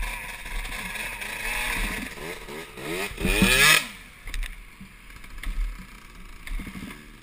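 Kawasaki KX450F four-stroke single-cylinder engine revving up and down at low speed, with the loudest, steepest rev about three and a half seconds in, then dropping back to a quieter low-rpm run.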